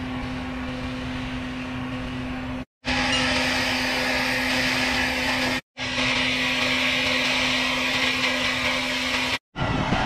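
Large sawmill saw machinery running steadily, a constant hum under a hissing cutting noise. The sound drops out abruptly to silence three times, each time for a split second.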